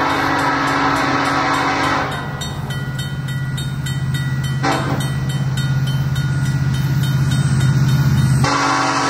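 Approaching diesel freight locomotive blowing its air horn for a grade crossing. A long blast cuts off about two seconds in, then a short blast comes midway, and the horn sounds again near the end. Between the blasts the locomotive's diesel engine drones low and grows steadily louder as the train nears.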